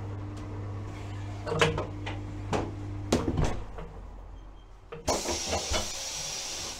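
A tyre-changing machine hums steadily, with several clunks, while its mount head works the tyre bead onto an alloy rim. The hum stops about three seconds in. A couple of seconds later, compressed air starts hissing suddenly and keeps going.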